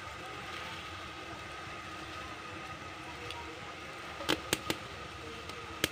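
Sugar syrup boiling in an aluminium kadai with chhena balls for rasgulla cooking in it, a steady hiss, with a few sharp clicks a little over four seconds in and near the end.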